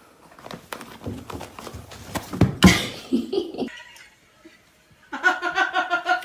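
Knocks and rustling with one loud thump about two and a half seconds in, then, after a short lull, a person laughing in rapid, even pulses.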